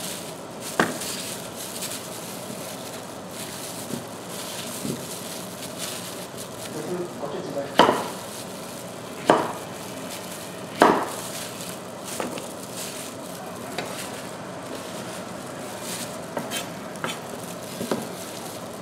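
Kitchen knife cutting butternut squash on a wooden cutting board: irregular sharp knocks a second or several apart. Under them runs a steady hiss from water heating in a stainless steel pot.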